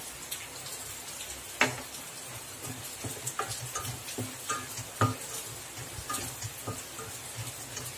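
Wooden spatula stirring a thick onion-tomato masala in a metal pan over a faint sizzle. The spatula knocks against the pan here and there, most sharply about one and a half seconds in and again about five seconds in.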